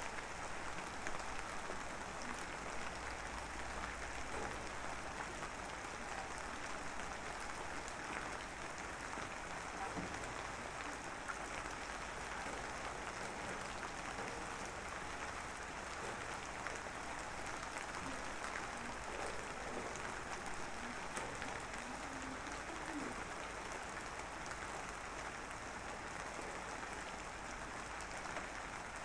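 Steady light rain, a drizzle of fine drops falling as an even, crackling hiss.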